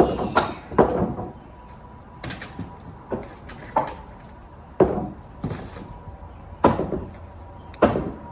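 Sharp wooden knocks and clatters from hand demolition of a wood structure with pry bars: about ten irregularly spaced impacts, some in quick pairs.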